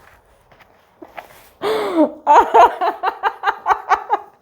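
A chiropractic patient gasps loudly in reaction to an adjustment, then breaks into quick breathy giggling in short pulses, about five a second. A few faint clicks come just before the gasp.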